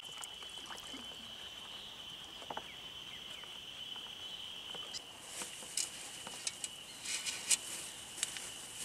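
Steady high-pitched insect drone from the riverside vegetation, with a scatter of short sharp clicks and crackles in the second half.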